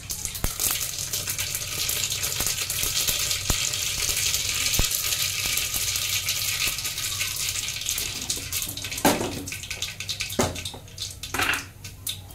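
Mustard seeds sizzling and crackling in hot oil as a dal tempering begins. The sizzle eases after about seven seconds, and a few knocks follow near the end.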